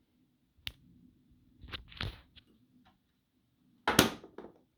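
Scattered clicks and knocks from the DeWalt torque wrench and its hard plastic case being handled, with the loudest cluster of knocks about four seconds in.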